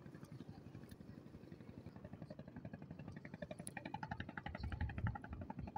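An engine running nearby with a rapid, steady chugging beat, growing louder in the second half.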